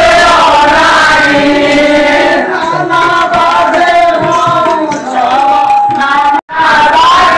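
Several voices singing a traditional Odia folk song together, the lines overlapping and held. The singing cuts out for an instant about six and a half seconds in.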